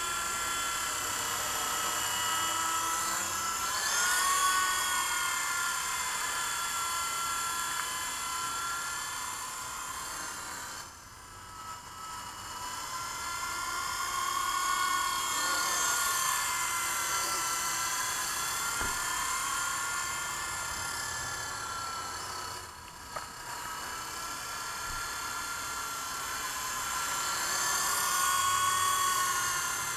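Wltoys V912 fixed-pitch RC helicopter in flight: a high electric motor and rotor whine that rises and falls in pitch as the throttle changes, dropping away briefly twice, about a third and three quarters of the way through.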